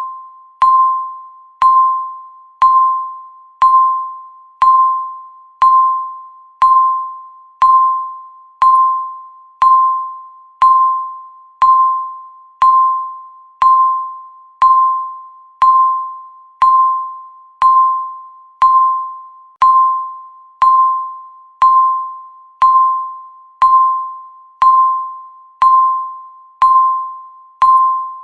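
Digital countdown timer beeping once a second to mark each second: identical pitched ding-like beeps, each starting sharply and fading away before the next.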